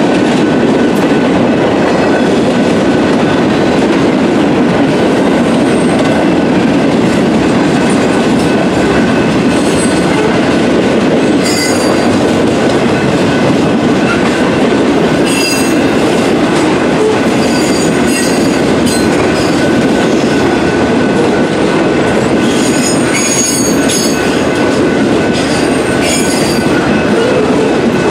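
Union Pacific mixed freight train rolling through a grade crossing: a steady, loud rumble of cars and wheels on the rails, with short high-pitched wheel squeals several times, mostly around the middle and near the end.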